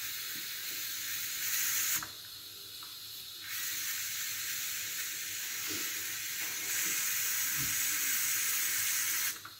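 Steam hissing out of a pressure cooker's release valve as the pressure is let off slowly by hand after cooking. The hiss is steady and high-pitched, weakens for about a second and a half around two seconds in, then resumes and stops just before the end.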